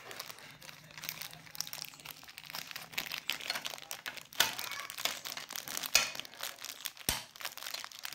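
Thin clear plastic wrapping crinkling and crackling as it is worked off a pair of eyeglasses. There are irregular crackles throughout, with louder rustles about halfway through and a sharp click about 7 seconds in.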